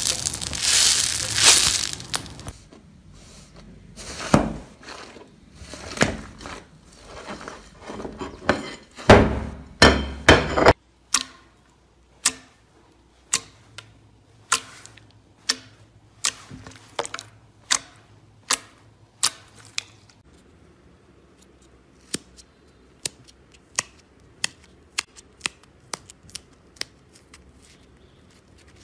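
Slime squeezed and pressed by hand. Crunchy foam slime crackles for the first couple of seconds, then softer squelching follows, then a long run of sharp clicking pops, about one a second, which thins into smaller, quicker clicks near the end.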